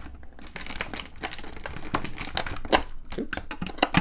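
Cardboard and plastic toy packaging being handled and pulled open: irregular crinkling and rustling with sharp clicks, the loudest a couple of snaps in the second half.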